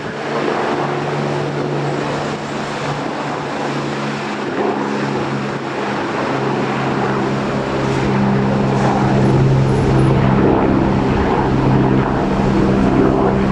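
Aircraft engines droning steadily and growing louder in the second half, with gusty wind noise on the microphone.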